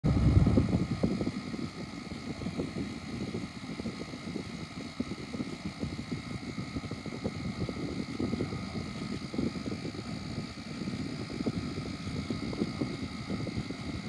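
General Electric AEM08FLM1 window air conditioner running: a steady rushing of air from its blower, with faint steady high tones over it. The noise is louder for about the first second, then holds level.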